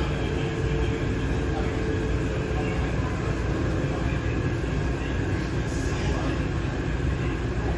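Taipei Metro 371-type train running along the line: a steady low rumble of wheels and running gear, with a faint steady tone that dies away about three seconds in.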